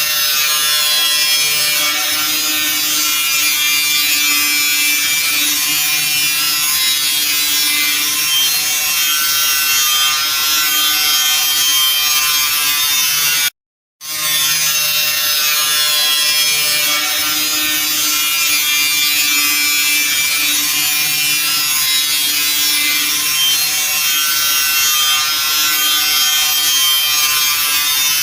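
Car running with a steady, harsh buzzing and grinding rattle over a low hum, the sound of a car damaged in an accident. It cuts out for a moment about halfway through and starts again the same.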